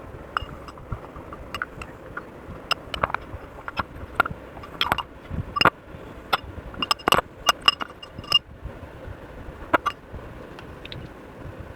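Irregular small clicks, clinks and scrapes from slime-making materials and utensils being handled and stirred in a container, over a steady low background hiss.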